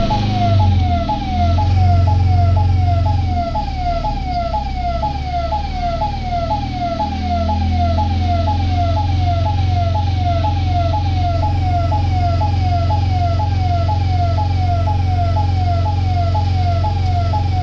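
An electronic siren sounding in quick falling sweeps, about two a second, over a steady low engine hum.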